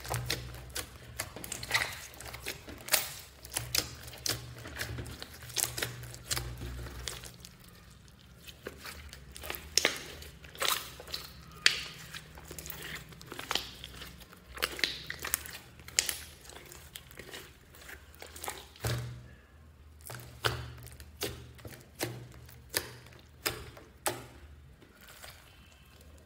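Hands squeezing, pressing and poking a lump of glitter slime, giving irregular wet squelches and sharp air-pocket pops and clicks, a few each second.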